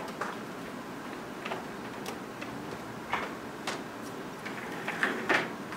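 Scattered light clicks and knocks, the loudest two close together near the end, over a steady room hiss: a person settling into a classroom desk and chair.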